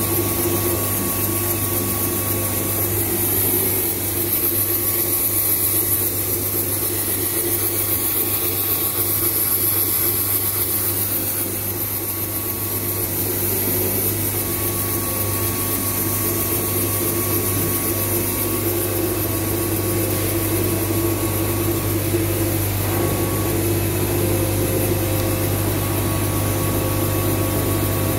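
Large CNC lathe running with a grooved steel roll turning in it: a steady machine hum with a low drone and a faint higher whine that comes and goes.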